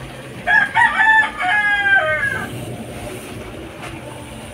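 A rooster crowing once: a single cock-a-doodle-doo of about two seconds in several linked notes, ending on a long falling note.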